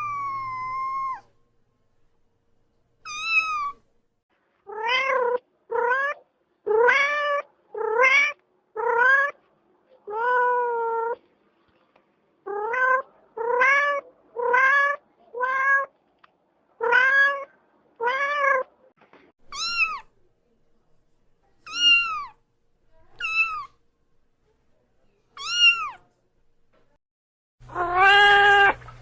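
Domestic cat meowing again and again. First comes a quick run of short meows that rise then fall in pitch, then a few higher, thinner meows a couple of seconds apart, and near the end a louder, longer meow over a low hum.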